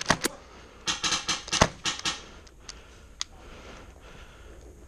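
Airsoft rifle firing: a quick string of sharp shots about a second in, then two single shots.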